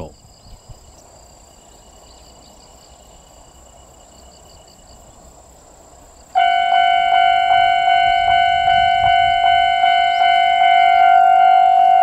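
Insects chirping faintly, then about six seconds in a Japanese railway level-crossing warning bell starts ringing loudly: an electronic clang repeated about twice a second, signalling that a train is approaching.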